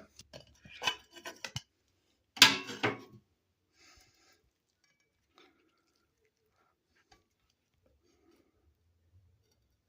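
Handling noises: a quick run of clicks and knocks in the first second and a half, a louder clatter lasting under a second about two and a half seconds in, then a few faint ticks.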